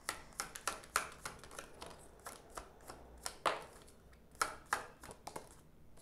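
Tarot cards being handled and laid out on a table: an irregular run of short, sharp card snaps and taps, the loudest about three and a half seconds in.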